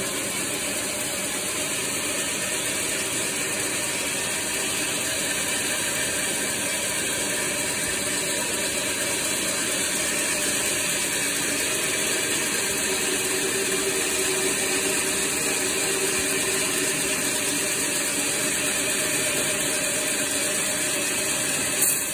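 Large industrial band saw running, a steady, unbroken mechanical noise, with a brief louder bump near the end.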